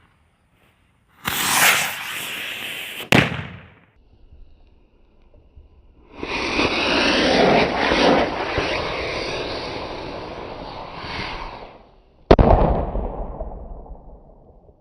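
Two Diwali firework rockets fire one after the other. Each gives a rushing hiss that ends in a sharp bang: the first burns for about two seconds, the second for about six.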